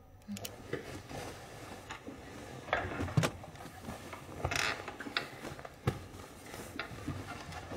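Small mechanical wind-up alarm clock being wound and set, a run of ratcheting clicks, followed by the rustle of quilts as they are pulled up.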